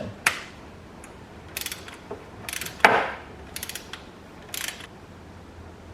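Ratchet of a torque wrench clicking in short bursts of ratcheting strokes as the oil filter cap is torqued down, with one louder single click about three seconds in.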